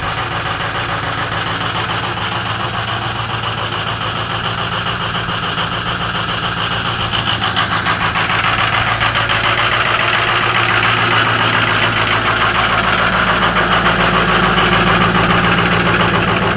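Ford 6.0 Power Stroke V8 turbo-diesel idling with a steady diesel clatter. It is cold, just after a hard two-minute cold start with the block heater not used. It gets somewhat louder about halfway through.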